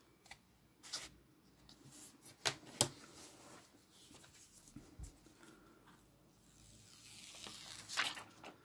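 Light handling noise: scattered clicks and taps as a clear silicone phone case and a smartphone are picked up and turned over, then a short rustling hiss near the end as the protective peel-off film is pulled off the phone's screen.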